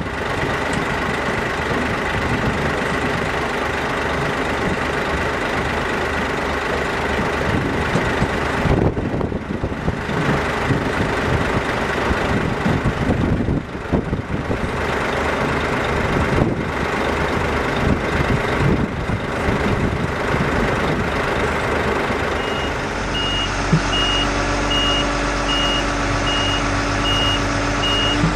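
Diesel engines of a sugar beet cleaner-loader and waiting trucks running steadily. About three quarters of the way through, the sound changes and a vehicle's reversing alarm sounds a steady run of evenly spaced high beeps.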